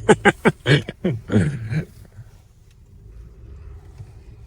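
Honda StepWGN minivan driving, heard from inside the cabin: a steady low road-and-engine rumble with a faint hum. A man's voice talks over it for the first two seconds or so.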